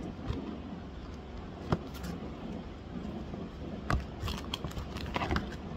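Paper gift bag, ribbon and tissue handled by hand: rustling and crinkling, with a few sharp clicks and a burst of crinkling near the end. A steady low hum runs underneath.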